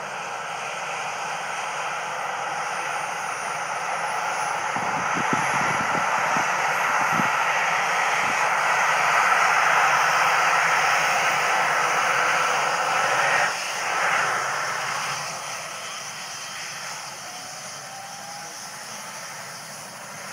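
ADAC EC135 rescue helicopter running on the ground, its turbine and rotor noise growing louder over the first ten seconds and then easing off. A few low thumps about five to eight seconds in.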